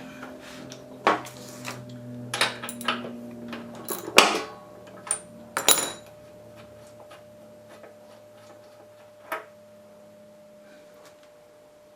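Metal hand tools clinking and knocking as the spark plug is taken out of a small mower engine with a socket wrench: a run of sharp clicks and clacks, two louder ones about four and six seconds in, then only a few faint clicks.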